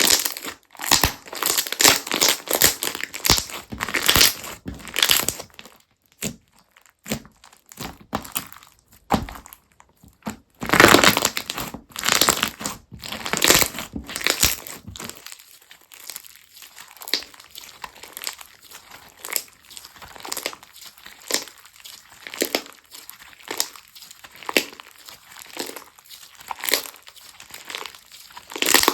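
Crunchy textured slime being squeezed and pressed by hand: dense crackling and popping, loudest near the start and again about eleven seconds in, then thinning to scattered pops.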